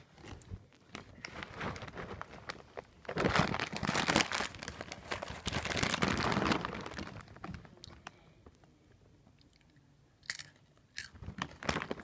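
Crinkling and crunching of a Hot Cheetos snack bag being handled close to the microphone. It is loudest for several seconds a few seconds in, drops away, and returns as two short rustles near the end.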